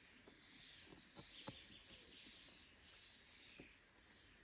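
Near silence: faint outdoor ambience with distant bird chirps and a few soft clicks or rustles.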